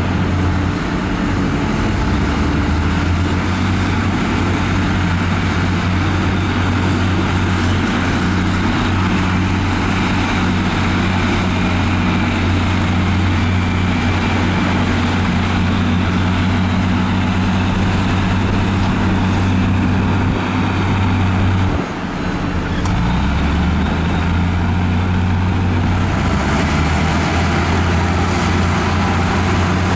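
Crawler bulldozers' diesel engines running steadily under load as they push dirt. About two-thirds of the way through, the sound briefly dips and the engine note shifts.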